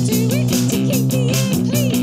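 Punk rock band playing live: electric guitar chords over a fast, steady drum beat, with a woman singing into the microphone.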